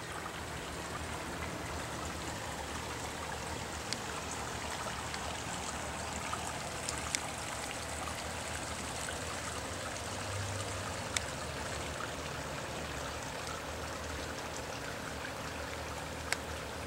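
Shallow mountain creek running over rocks: a steady rush and babble of flowing water, with a few faint clicks.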